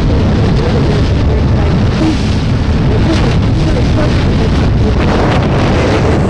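Loud, steady wind buffeting the microphone aboard a moving boat, over a low engine rumble, with faint voices underneath.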